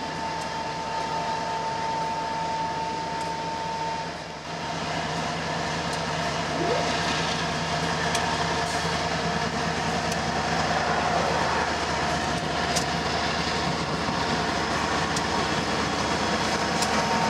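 Lead diesel-electric locomotives of a freight train, a GE ES44AC and an EMD SD60, moving slowly forward as the train starts to pull out: a steady diesel engine sound that grows louder about six seconds in as the units come alongside.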